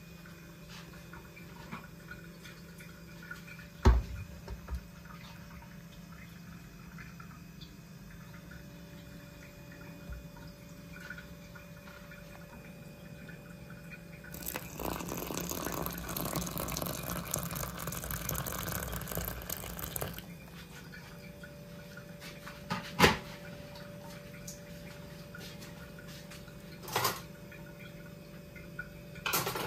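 Liquid is poured into a plastic porridge pot of dry oats for about five seconds midway, over a steady low hum. There are a few sharp knocks, one early and a couple near the end.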